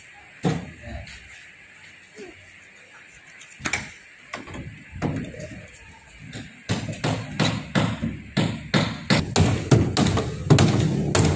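Plywood lid being settled onto a wooden shipping crate with a few scattered knocks, then a hammer nailing the lid shut: a quick run of blows, about two to three a second, starting about two-thirds of the way in.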